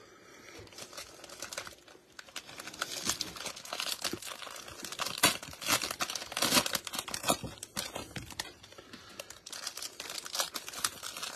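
Plastic trading-card pack wrappers being torn open and crumpled by hands in thin plastic gloves: a dense crackling and crinkling that grows busier after the first couple of seconds.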